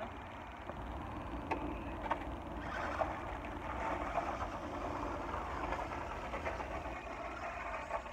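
Toy RC car driving over a gravel driveway: a steady rough rolling noise that grows fuller a few seconds in, with a low rumble underneath and a few faint clicks near the start.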